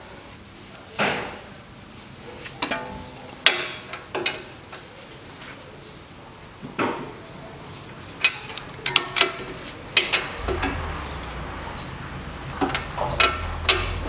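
Hand tools clanking and clicking on the steel strut-to-knuckle bolts as a ratchet and wrench tighten them, a few strikes ringing briefly. A low rumble joins about ten seconds in.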